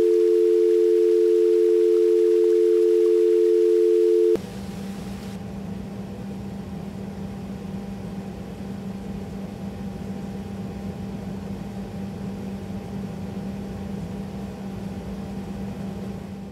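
Australian telephone dial tone: a steady, loud low tone on an open line that cuts off suddenly about four seconds in. A quieter steady low hum with a faint hiss follows.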